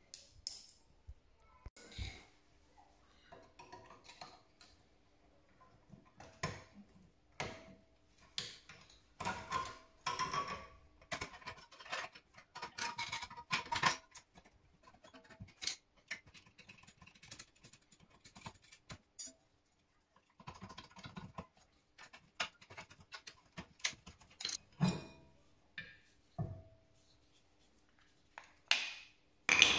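Irregular metallic clicks, scrapes and clinks of a screwdriver and hands working on a Volkswagen-group rear brake caliper, prying at it and then lifting it off. The sounds come thickest in the middle, and there is a sharp knock near the end.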